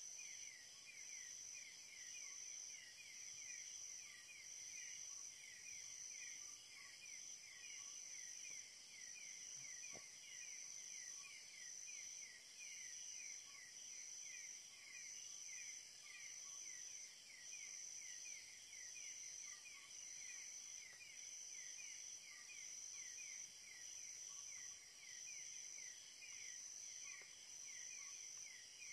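Faint night chorus of forest insects: one insect trills in high pulses about once a second, over fast, repeating chirps from others, about three a second.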